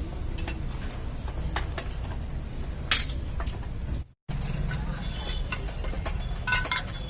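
Scattered sharp metallic clicks and clinks of tools and parts being handled while dismantling a motorcycle, over a low steady background rumble; the sound cuts out briefly about four seconds in.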